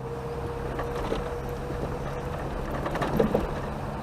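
Chevrolet Chevette's four-cylinder engine and road noise heard from inside the moving car: a steady low hum, with a few short knocks and rattles about a second in and again about three seconds in. The rattles are from loose clutter in the trunk, which the owner says is making a racket.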